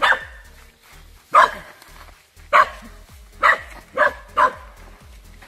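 A dog barking, six short single barks, roughly a second apart at first and quicker for the last three.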